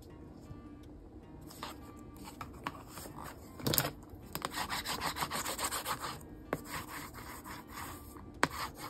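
Paper being handled and rubbed by hand, fingers pressing double-sided-taped paper pieces down to stick them, with a dense spell of rubbing about four to six seconds in. A sharp click comes just before it, and a few lighter taps are scattered through the rest.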